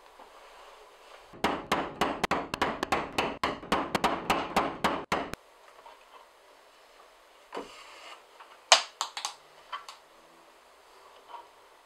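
Hand leatherworking: a run of about fifteen quick rasping strokes on leather, some four a second, lasting about four seconds and stopping abruptly. Then comes a scatter of quieter clicks and tugs as saddle-stitching thread is drawn through the punched holes, with one sharp click the loudest.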